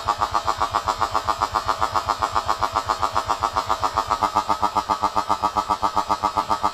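Elite Force Beretta ARX-160 airsoft electric gun firing one long full-auto burst, about nine shots a second in an even buzzing rattle.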